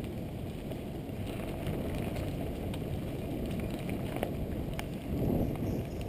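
Wind buffeting a camera microphone on a moving bicycle, mixed with the tyres rolling over a rough forest road, with scattered small clicks and rattles from the bike.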